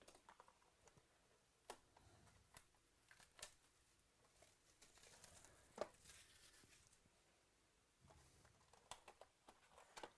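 Faint crinkling and rustling with scattered light clicks, from a trading-card box being opened and the card inside handled.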